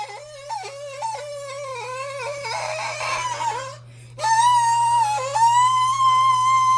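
A high-pitched voice singing without words in a wavering, wailing way, then holding one long high note from about four seconds in, over a steady low hum.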